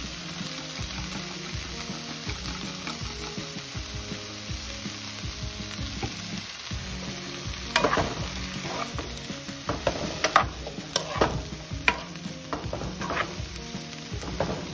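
Broccoli, onion and garlic sizzling in butter and olive oil in a frying pan while a wooden spoon stirs them. From about eight seconds in, the stirring gets brisker, with sharp knocks and scrapes of the spoon against the pan.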